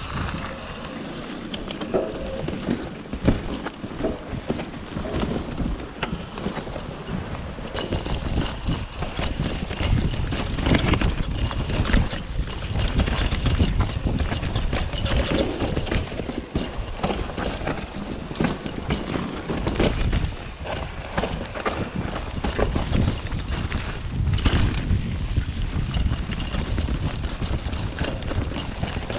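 Wind buffeting a chest-mounted camera's microphone while a bike is ridden fast over rough ground, with a steady run of rattles and knocks from the bike and its tyres.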